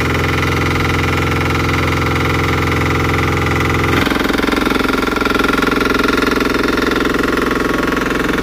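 Husqvarna walk-behind vibratory double-drum road roller running, its small engine clattering steadily. About four seconds in the note changes and turns more rattly as the roller is set working.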